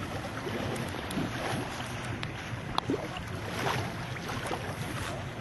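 Motorboat engine running steadily, with a rushing haze of wind and water noise over it.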